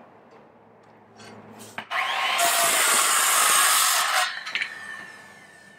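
Circular saw starting about two seconds in and cutting through a wooden board for about two seconds. The trigger is held as the blade leaves the cut, so the blade then runs free and its whine fades away over a second or so as it coasts toward a stop.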